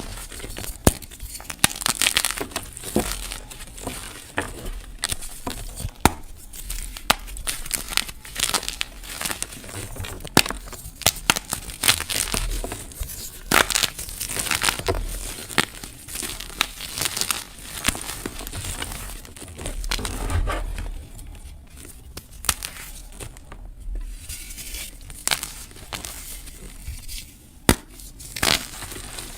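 Gym chalk blocks and dried flower petals being crushed close to the microphone: a dense, irregular run of small dry crunches and crackles, thinning out briefly about three-quarters of the way through.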